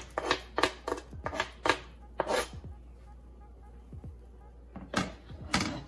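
Sharp taps and scrapes of a utensil and a plastic cutting board as chopped garlic is knocked off the board into a pot: about six quick knocks in the first two and a half seconds, then two more near the end.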